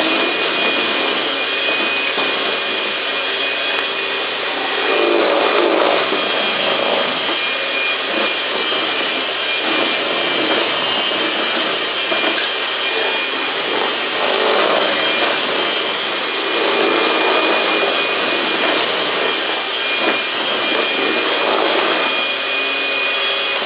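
Electric kitchen mixer running steadily, a motor hum with a thin high whine and the beaters working through muffin batter. It cuts off right at the end.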